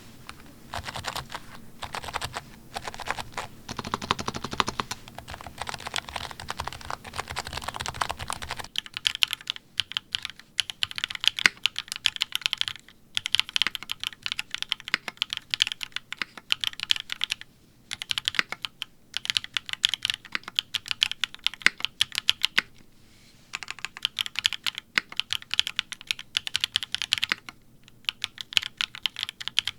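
Fast typing on an Agar keyboard with 45 g AEBoards electro-capacitive (EC) switches, a polycarbonate plate, no foam and GMK Dracula keycaps. Dense runs of keystrokes are broken by several short pauses.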